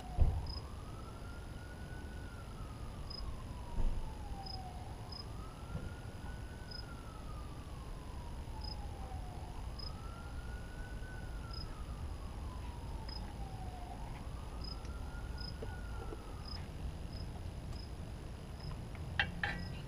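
A siren wailing faintly in the distance, each cycle rising quickly and then falling slowly, four times about every four and a half seconds, over a low outdoor rumble. A brief knock sounds about four seconds in.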